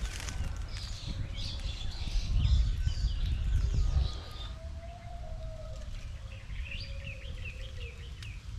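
Wild birds chirping in quick, high runs, twice, with a low rumble on the microphone that is loudest in the middle.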